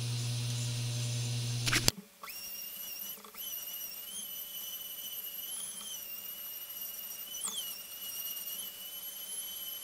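A steady low power-tool motor hum for about two seconds, then it cuts off. A random orbital sander then runs with a high, slightly wavering whine, its pitch dipping briefly as it is pressed into the wood.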